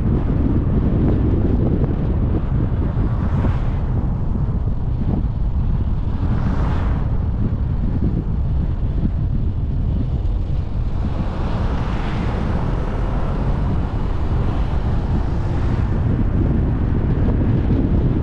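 Steady road and wind noise from a car driving, with wind buffeting the microphone. A few brief rushing swells rise and fall over it.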